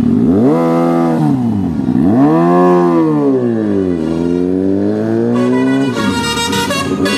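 Sport motorcycle engine revved hard twice while standing, the pitch climbing and falling back each time, then rising slowly again. Near the end a vehicle horn sounds over it.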